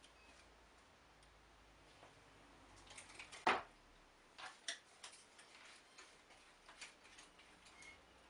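Light, irregular clicks and knocks of small wooden blocks and veneer stacks being handled and set down on a wooden workbench, the loudest knock about three and a half seconds in.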